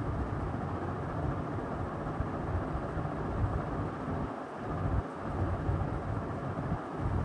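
Wind buffeting the microphone on a moving motorcycle: a low, uneven rumble that comes in gusts, with the bike's running and road noise beneath it.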